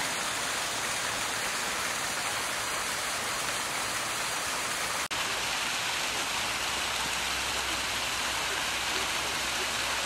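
Steady rush of water from a small waterfall spilling into a rock pool. It briefly drops out about five seconds in, then carries on a little brighter.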